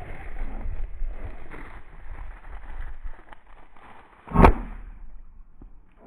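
A single loud shotgun shot about four seconds in, fired at a flushing quail, with a short echoing tail. Before it, a steady rustling noise.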